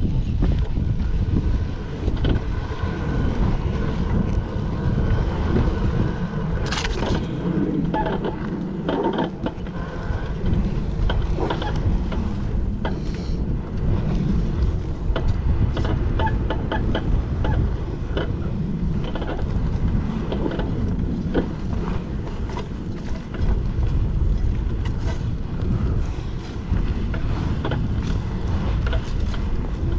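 Dirt bike riding down a rough trail, its engine running under wind buffeting on the microphone. Scattered knocks and rattles from the bike going over rocks are heard throughout.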